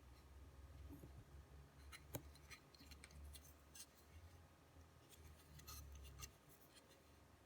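Faint, irregular small clicks and snips over a low handling rumble, all stopping about a second before the end.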